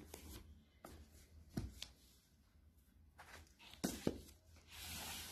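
Faint handling sounds of hardcover books being moved and set down on a cloth-covered table: a few soft knocks and taps, then a short swish near the end.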